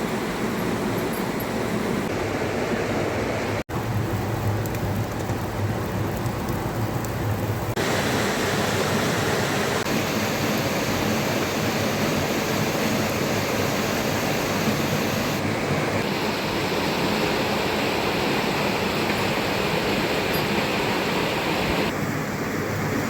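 Steady rushing water noise, with its tone changing abruptly a few times.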